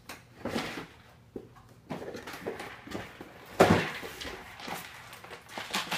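Packaging and parts being handled and rummaged through in an airsoft gun box: irregular rustling with knocks, the loudest a sharp knock about three and a half seconds in.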